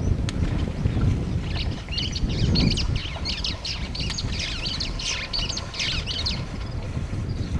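Birds chirping in a rapid string of high calls, starting about a second and a half in and stopping about a second before the end, over a low rumble of wind on the microphone.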